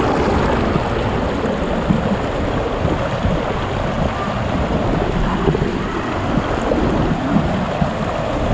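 Shallow, rocky stream rushing and splashing over boulders close by, a steady rush of water.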